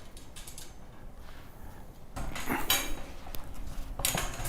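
Metal parts of a compost tumbler being handled during assembly: faint clicks, then a louder bout of metallic clattering and scraping about halfway through and another near the end.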